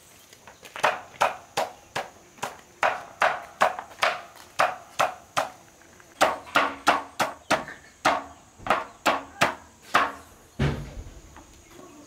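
Knife chopping on a chopping board: a steady run of sharp strikes, about two to three a second, broken by short pauses, with a dull low thump near the end.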